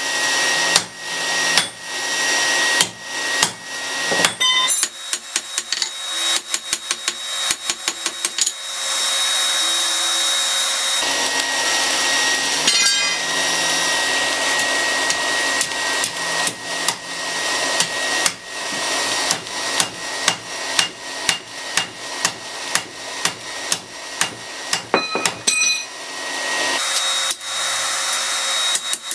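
Hammer blows on red-hot rebar on an anvil, forging it out flatter and then bending it over the anvil's edge: a long series of strikes, sometimes in quick runs, the anvil ringing after many of them, over a steady hiss.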